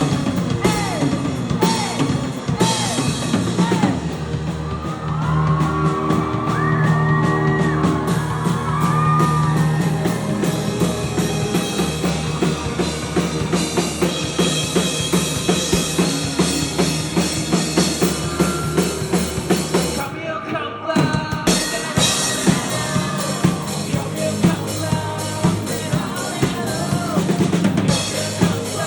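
Rock band playing live: drum kit with kick and snare, bass, guitars and a singing voice, with a short break in the drums and cymbals about twenty seconds in.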